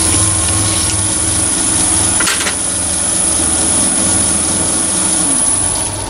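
Chinese mini lathe running with a steady high motor whine while a flat file rubs against a small brass collar spinning in the chuck, chamfering its edge. The lathe slows near the end.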